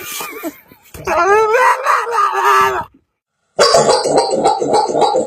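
Pet dog howling in a wavering, sing-song way, in two stretches: one of about two seconds, then after a short pause a louder, denser stretch.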